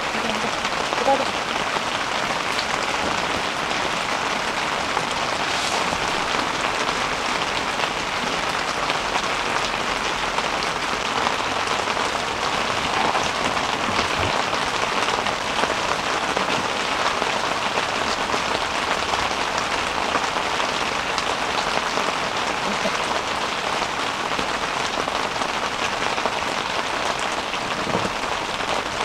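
Heavy rain falling steadily on the fabric of an Idoogen Stardome tent, an even, unbroken patter.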